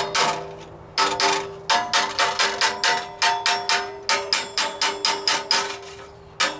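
Hammer striking a steel sheet-metal patch held on a block, tapping a stiffening bead into it: a fast run of blows, about three a second with a short pause near the start and near the end, each leaving the metal ringing at the same pitch.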